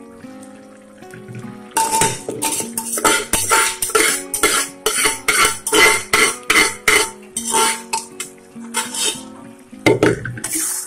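Metal spatula scraping and clattering against a black wok while taro leaves simmering in liquid are stirred, in rapid repeated strokes of about three a second that start about two seconds in and thin out near the end.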